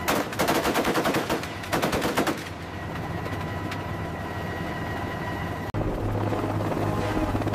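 Helicopter door-mounted machine gun firing two rapid bursts, separated by a brief gap, over the first two and a half seconds. A steady hum follows. Near the end a helicopter's rotor beats low and fast.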